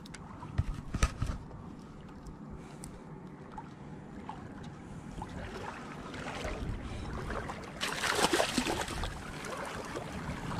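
A small hooked snook splashing and thrashing at the water's surface as it is reeled in, with the loudest splashing coming in a spell past the middle. A few sharp knocks about a second in.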